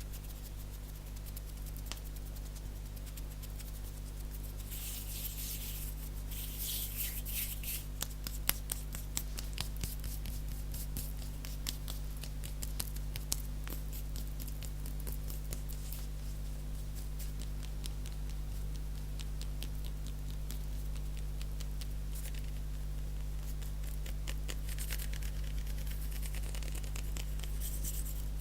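Close-miked hand sounds: rapid light finger and fingernail taps throughout, with dry swishes of palms rubbing and fluttering about five to eight seconds in and again near the end, over a steady low hum.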